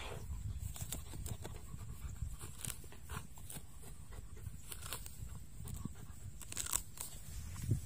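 A dog sniffing and rooting with its nose in the grass and soil at a mouse hole, a run of short, irregular crunchy rustles and snuffles with a louder cluster near the end, over a steady low rumble.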